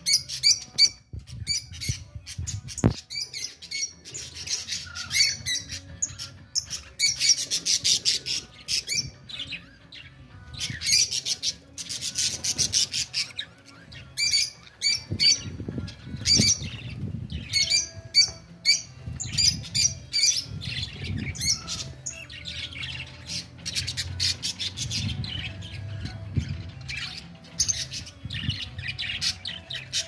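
A flock of caged lovebirds and budgerigars chattering, with dense runs of rapid high chirps and squawks and a low rumble underneath.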